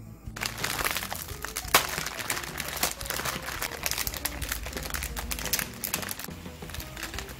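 Plastic Yeul Ramen instant-noodle packet crinkling and rustling as it is torn open and handled, thinning out near the end.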